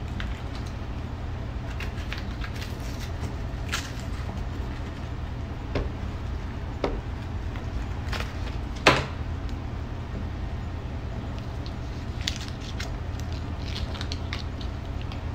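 Pot of chicken at a rolling boil: a steady low bubbling rumble with scattered small pops and clicks, and one sharp knock a little under nine seconds in.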